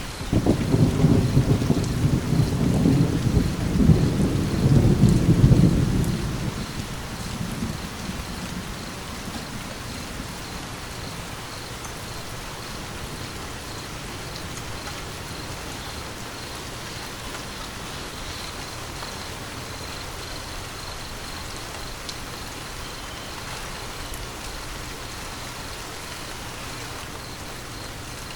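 A thunder rumble breaks in suddenly at the start and rolls for about six seconds before dying away, over steady rain falling.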